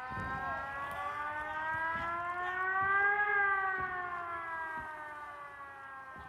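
A siren-like wail from the soundtrack: several tones held together rise slowly to a peak about three seconds in, then glide back down.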